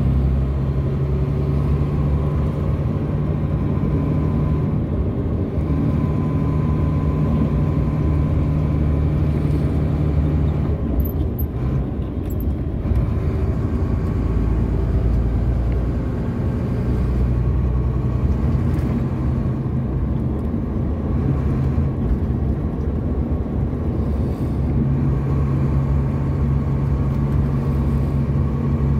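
Tractor-trailer's diesel engine running and tyre noise heard from inside the cab while driving, a steady drone. The engine tone eases about ten seconds in and builds back up near the end.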